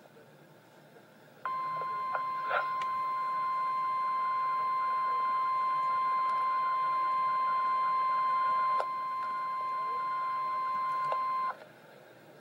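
NOAA Weather Radio 1050 Hz warning alarm tone: one steady, single-pitched tone that starts about a second and a half in, holds for about ten seconds and cuts off sharply. It signals an emergency alert broadcast, here ahead of a severe thunderstorm watch.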